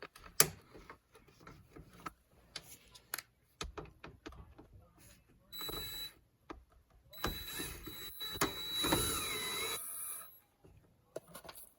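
Light clicks and one sharp snap as the new door handle is pressed in, then a cordless drill with a T30 Torx bit whines in a short run and then a longer one of about three seconds, driving in the handle's fasteners.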